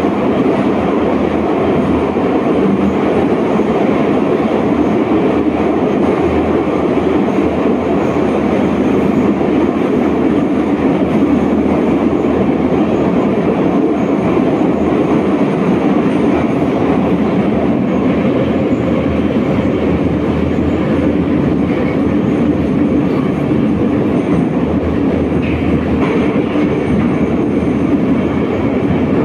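Metro train running at speed through a tunnel, heard from inside the carriage: a steady, loud rumble of wheels on rail.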